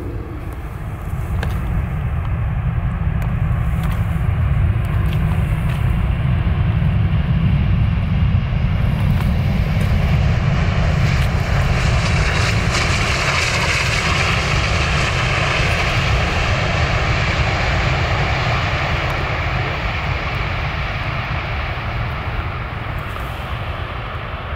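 Boeing 747-8 freighter's four GEnx jet engines rumbling as the jet rolls out on a wet runway. The sound swells as it comes past, a higher hiss peaking about halfway through, then fades as it moves away.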